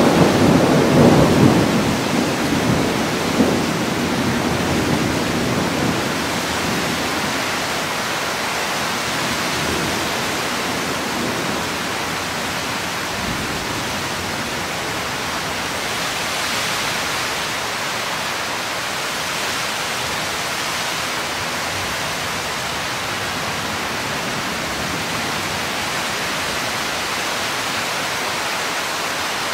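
Thunder rumbling loudly and dying away over the first few seconds, then a steady hiss of heavy rain from a thunderstorm.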